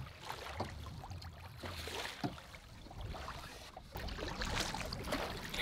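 Small waves lapping and splashing against the hull of a canoe, with scattered drips and light knocks.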